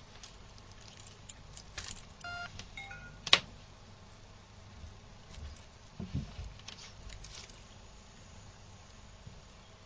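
Two short electronic key beeps from the W960 mobile phone watch as its buttons and touchscreen are pressed, followed by a sharp click, the loudest sound, and light rubbing and tapping of fingers on the watch case.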